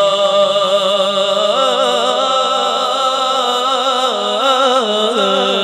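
A man singing a naat solo into a microphone: he holds a long steady note, then about a second and a half in moves into an ornamented melody with quick wavering turns of pitch.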